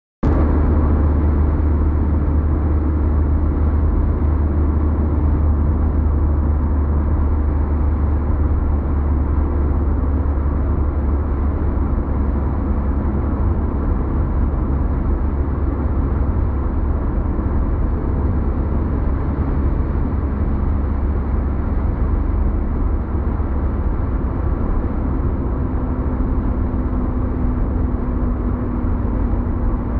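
Steady road noise heard inside a moving car at motorway speed: a deep engine and tyre rumble that holds even throughout.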